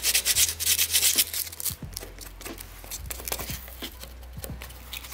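Hand saw cutting through the protruding end of a metal bolt with rapid back-and-forth rasping strokes. After about two seconds the strokes become slower and fainter.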